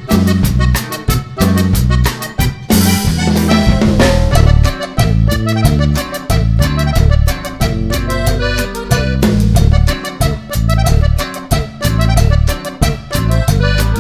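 Upbeat instrumental background music with a steady beat, a bouncing bass line and drums.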